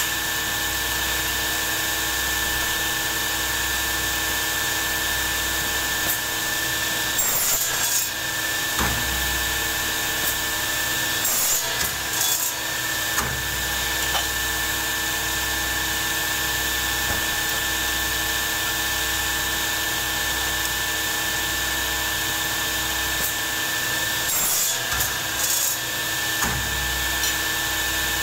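A machine runs with a steady hum, and short rasping, scraping bursts come as the man works material at it, about seven seconds in, around twelve seconds in, and about twenty-five seconds in.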